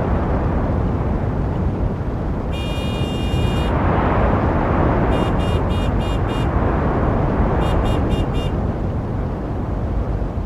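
Dense road traffic with a steady rumble of engines and tyres, cut through by car horns: one long honk about three seconds in, then a run of five quick toots and, shortly after, four more quick toots.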